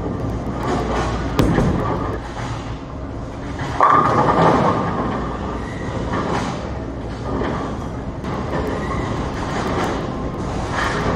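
Bowling alley din: a steady rumble of balls rolling and pins clattering on the lanes, with an automatic pinsetter cycling and setting a fresh rack of pins. A sudden loud clatter comes about four seconds in.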